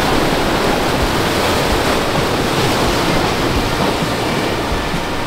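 Ocean surf breaking and washing over shoreline rocks: a steady, dense rush of water.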